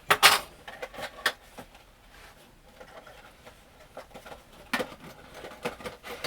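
Cardboard Funko Pop box and its plastic packaging being handled and opened: scattered crinkles, scrapes and light knocks, loudest just after the start and again about five seconds in.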